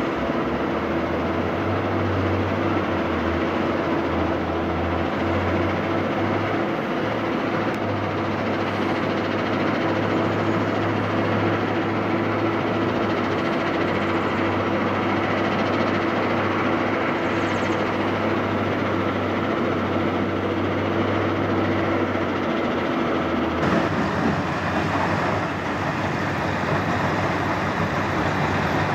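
Steady din of heavy quarry machinery: a mobile crushing and screening plant running with conveyors and a CAT wheel loader's diesel engine, holding a steady hum. About 24 seconds in, the sound changes abruptly to a Komatsu PC 350 excavator and a mobile jaw crusher.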